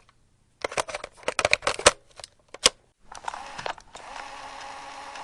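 A quick irregular run of sharp clicks and clacks, then about three seconds in a steady mechanical whir with a faint hum sets in and keeps going.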